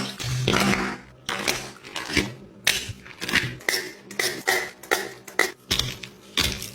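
Slime being squeezed and worked by hand, giving a run of short wet pops and clicks, two or three a second, at an uneven pace.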